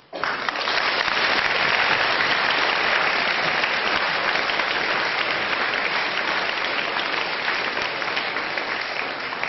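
Audience applauding: clapping that starts abruptly and holds steady, easing off a little near the end.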